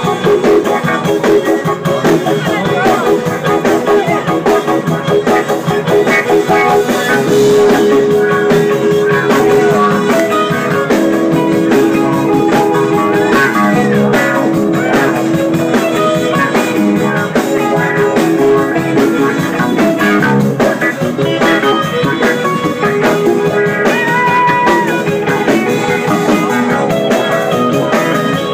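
Live rock band playing: electric guitar over bass and drums, with the full band going steadily throughout.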